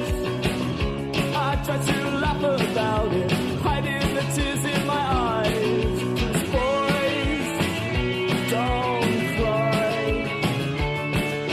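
Rock song with a steady drum beat and a singing voice.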